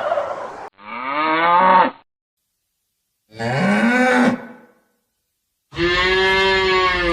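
Cows mooing: three separate long moos with silence between them.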